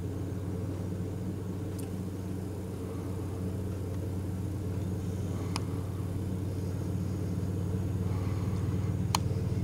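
Vehicle engine idling steadily, a low even hum, with three faint clicks spread through it.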